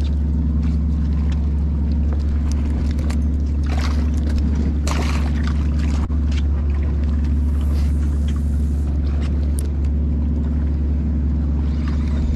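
Boat engine running steadily at low speed with a constant drone. Water splashes and gurgles over it, loudest about four to five seconds in.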